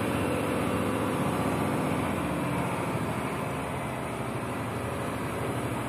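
Truck engine running steadily at low revs, heard from inside the cab while the truck drives slowly.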